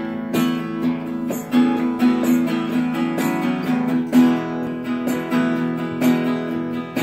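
Acoustic guitar playing the instrumental intro of a song, with steady, rhythmic strumming over a low note that keeps ringing underneath.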